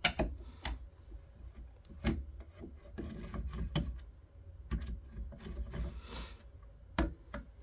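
Scattered clicks, taps and scraping from a screwdriver and hands working the screws of an Altec Lansing ACS54 subwoofer cabinet, with one sharper knock near the end.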